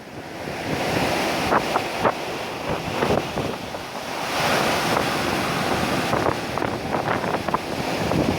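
Ocean waves breaking on a shore: a steady rush of surf that swells louder about a second in and again a little past the middle, with wind buffeting the microphone.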